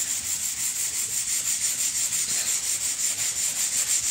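Hand-held scrub pad rubbed rapidly back and forth over a hardwood floor, scouring off dried pink paint: a steady, rhythmic scrubbing.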